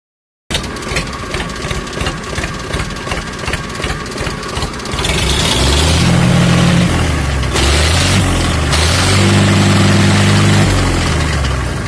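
A Mahindra Shaktimaan 30 tractor's diesel engine cranked on the starter for several seconds, then firing and running, revved up twice and dropped back, after its diesel filter and fuel line have been cleaned.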